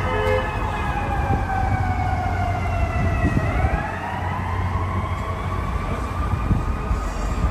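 Emergency-vehicle siren in a slow wail: its pitch falls for about three seconds, then turns and rises again. Under it runs a steady low rumble of city traffic.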